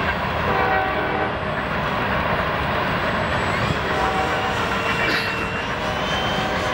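Electric ducted fan of a 90 mm EDF radio-controlled F-18 jet in fast flight: a steady rushing whine whose pitch slides as the jet passes.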